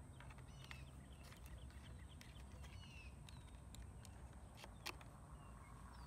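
Very faint outdoor background with scattered short bird chirps and a few light clicks of wiring being handled.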